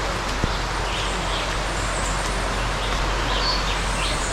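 Rainforest ambience: a steady hiss of background noise, with a few faint high bird chirps and a single click about half a second in.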